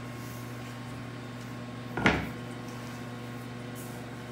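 A single dull knock about two seconds in, from the reupholstered bucket seat being handled on its wooden stand, over a steady low hum.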